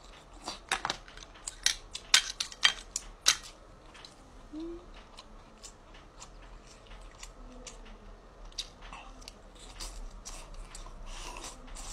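Scissors cutting through fried chicken cutlets: a run of sharp snips, closely spaced for the first three seconds or so, then fewer and further apart.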